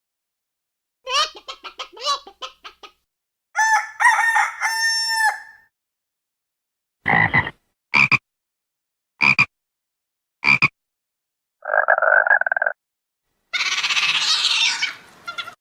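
A hen clucking in a quick series of short clucks, then a rooster crowing one long crow. Then come four short, evenly spaced calls, a buzzy call, and a rough, noisy call near the end, all from an unidentified animal.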